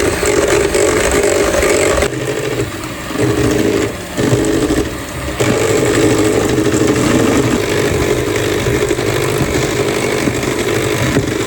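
Electric hand mixer running at high speed, beating eggs in a bowl, with a steady motor whir that briefly drops in level a few times a few seconds in.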